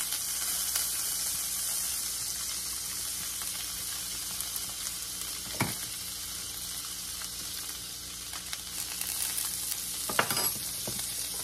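Butter melting and foaming in hot olive oil in a cast iron skillet, a steady frying sizzle, with a single sharp tap about halfway through.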